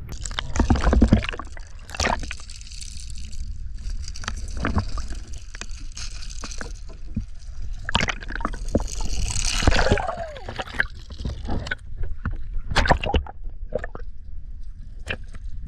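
Water sloshing and gurgling around a camera held at and just below the surface beside a boat hull, with irregular splashes and knocks; loudest about a second in and again near the ten-second mark.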